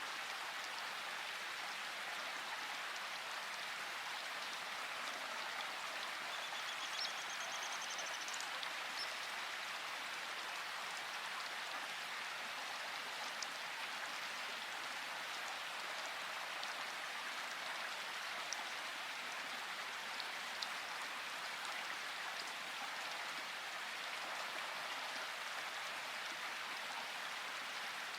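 Steady rain falling, an even patter with a few sharper drop ticks here and there.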